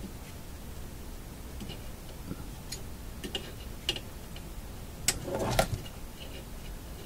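Scattered small clicks and taps as a soldering iron works on the solder lugs of a vintage radio's volume control, unsoldering it from the chassis, with a louder scrape or knock of handling about five seconds in.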